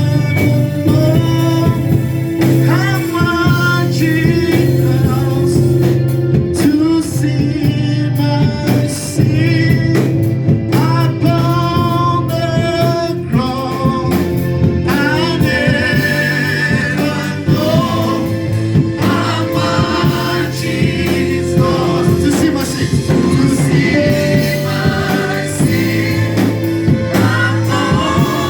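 Gospel music: a group of voices singing over instrumental accompaniment with steady held bass notes.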